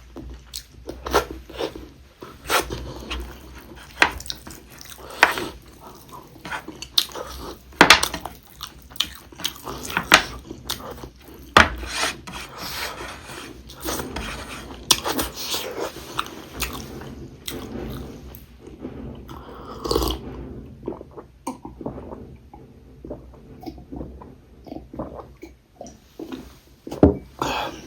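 Close-miked chewing and mouth smacking while eating pork ribs with rice, with many irregular sharp clicks and smacks.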